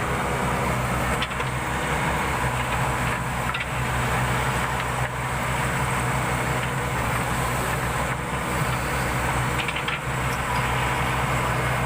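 Heavy diesel engine of the loading machinery running steadily at an even speed, with a few faint knocks.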